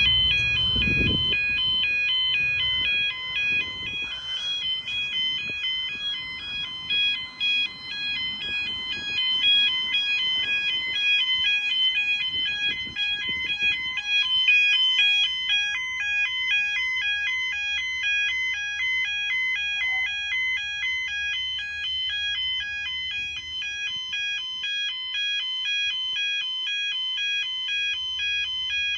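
Level crossing audible warning alarm sounding continuously, a tone that alternates between two pitches several times a second. It warns that a train is approaching. Road traffic passes through the crossing in the first half.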